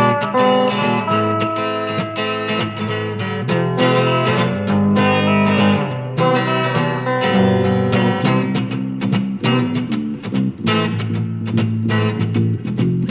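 Background music: a guitar playing a run of plucked notes over a steady low accompaniment.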